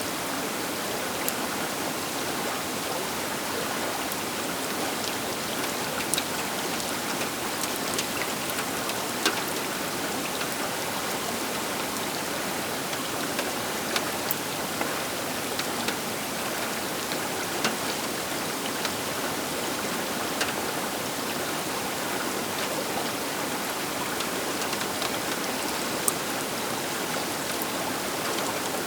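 Baker River water rushing steadily at the bank: an even hiss of moving water, dotted with many small splashes and clicks.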